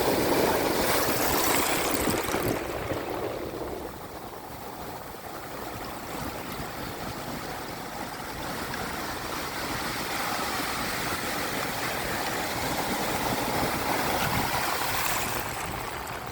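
Ocean waves washing up the beach over sea shells. A loud wash in the first few seconds falls away, and a second wave swells and recedes near the end.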